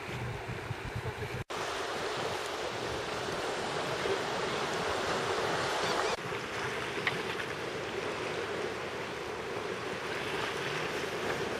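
Sea water lapping and sloshing with wind noise on the microphone, a steady rushing hiss. It cuts out for an instant about a second and a half in and shifts in tone around six seconds.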